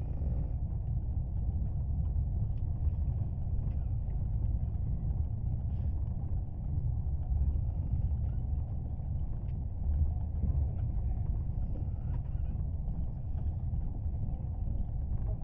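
Steady low rumble of an Indian passenger train running, heard from inside the coach, with a few faint clicks.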